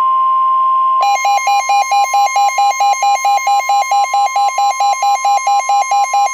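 NOAA Weather Radio warning alarm tone: a steady single high tone that signals an incoming warning. About a second in, a harsh electronic alarm starts beeping rapidly over it, about four to five beeps a second.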